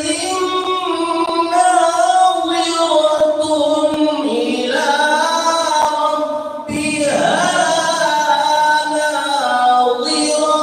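A man's voice in melodic Quran recitation, holding long, drawn-out notes with slow turns of pitch. One phrase ends and a new one begins, rising, about six and a half seconds in.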